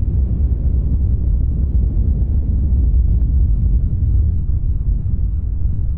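Wind buffeting the microphone: a loud, steady low rumble with no distinct tones.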